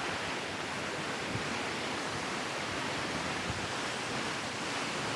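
Waterfall pouring down, a steady rushing noise of falling water and spray.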